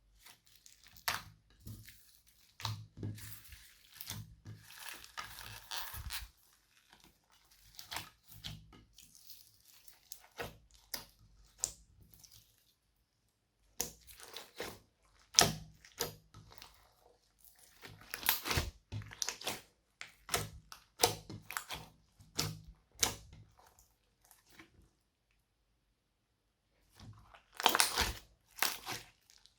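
Slime being squeezed, stretched and kneaded by hand, giving off irregular crackles, pops and sticky tearing sounds, with short pauses and a louder run of crackling near the end.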